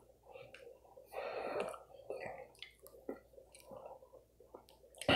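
Faint handling noise from fingers on a recording phone's touchscreen: soft taps and short rubs, the longest about a second in, as a message notification is swiped away.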